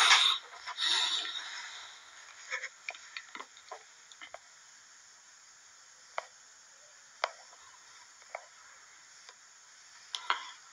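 Clothing and body rustling close to the microphone for about a second and a half as a person moves in front of the phone and sits down. Scattered faint clicks follow, a quick cluster and then about one a second.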